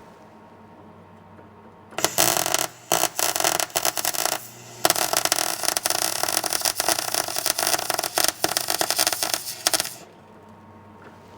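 A MIG welder's arc crackling while tacking the rear suspension into place. A run of about two and a half seconds begins about two seconds in, then after a brief pause a longer run of about five seconds follows and stops near the end.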